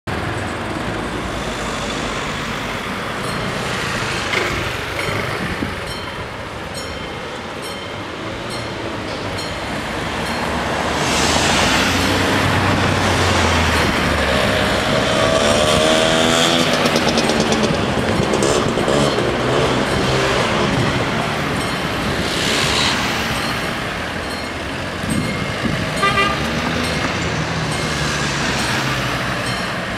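Road traffic crossing a level crossing, cars and a motor scooter driving past, loudest about midway. Near the end the level crossing's warning bells ring as the barriers come down.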